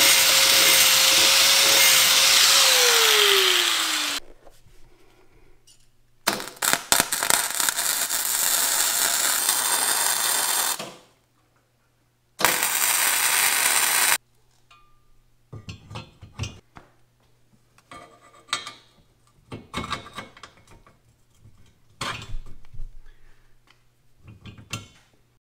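A handheld power tool runs under load with a steady whine, which falls as the tool spins down about three to four seconds in. Then a MIG welder crackles in two runs, a long one of about four and a half seconds and a short one of about two seconds, welding a steel receiver in place, followed by scattered light metal clanks and knocks.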